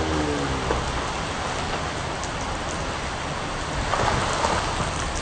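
Heavy hurricane rain pouring steadily onto trees, shrubs and the ground, swelling slightly about four seconds in.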